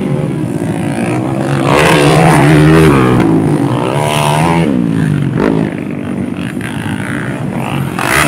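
Underbone motocross bike's small single-cylinder four-stroke engine revving hard, its pitch climbing and dropping through throttle and gear changes. It is loudest around two to three seconds in, and rises again about four seconds in.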